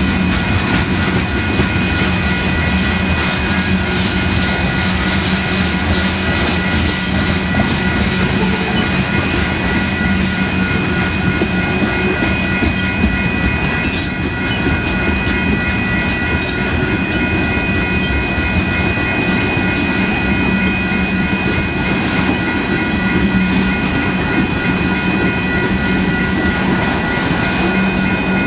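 Freight cars of a long manifest train rolling past close by: a steady rumble and clatter of steel wheels on the rails, with a few thin, steady high tones above it.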